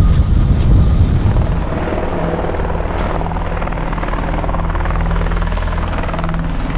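Helicopter running, a steady low drone of rotor and engine with a fast even flutter. A heavier rumble in the first second or so eases to a steady level.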